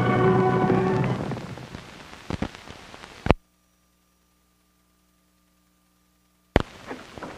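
Theme music fading out into the hiss and crackle of an old film soundtrack, with a few pops and a loud click about three seconds in. Then about three seconds of dead silence, broken by another click and more hiss.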